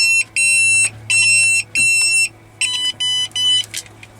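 Pathfindr social-distancing proximity wearable sounding its alert because another unit is within 2 metres: a string of high electronic beeps of about half a second each, then three quicker, shorter beeps at a slightly different pitch. A faint steady low hum runs underneath.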